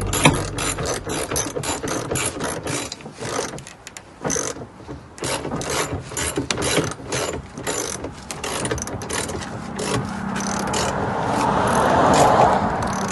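Socket ratchet wrench clicking in quick runs while bolts are tightened on a plastic garden dump cart. A steadier rushing noise builds near the end.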